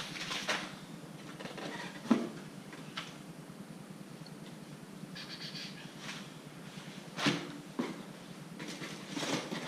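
Lift-kit parts and cardboard packaging being handled: scattered knocks and clunks, the loudest about two seconds in, with a brief squeak about five seconds in.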